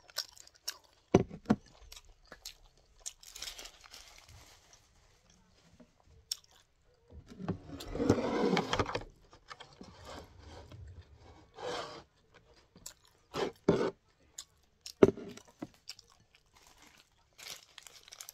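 Person eating close to the microphone: chewing and crunching, with many short sharp clicks scattered through, and a louder, longer stretch about eight seconds in.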